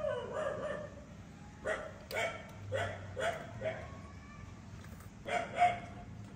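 A dog yipping: a run of short, high barks in quick succession about two seconds in, then a louder bark near the end.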